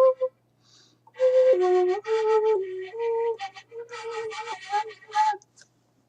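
Albanian fyell, a shepherd's pipe, played as a tune of held notes stepping up and down, with a short break about a second in; the playing stops near the end.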